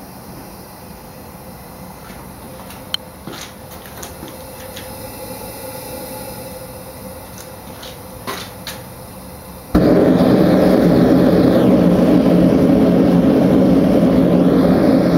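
Handmade venturi propane burner on a forge being lit: a faint hiss with a few sharp clicks and small pops, then about ten seconds in it catches all at once and runs with a loud, steady rush of burning gas with a deep rumble.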